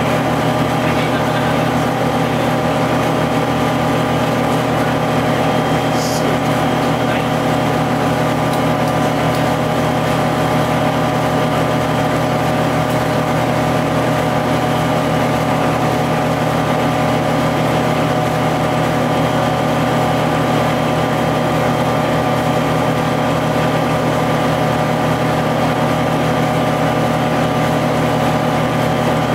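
GM TDH-5303 bus's two-stroke Detroit Diesel engine running steadily at an even pitch, with road noise, as if cruising at constant speed. A short high click about six seconds in.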